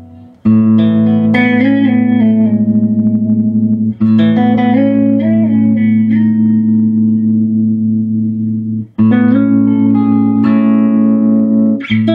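Electric guitar played through a 1968 Fender Pro Reverb tube amp on its vibrato channel with the tremolo on: four strummed chords, each left to ring for a few seconds, with a faint pulsing in the sustain. The tremolo works but is weak, which the owner suspects comes from a non-original replacement capacitor of unknown value.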